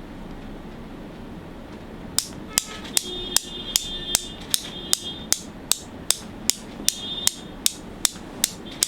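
Sharp metallic taps at a steady, even pace of about two and a half a second, starting about two seconds in, some with a brief high ring. Under them is a steady low hum.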